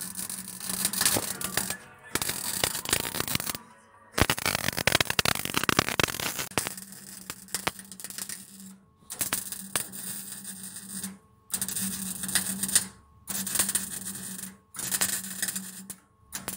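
CO2 gas-shielded MIG welder arc crackling and sputtering as an exhaust pipe is welded. It runs in about seven bursts of one to four seconds each, with short breaks between them as the welder stops and restarts the bead.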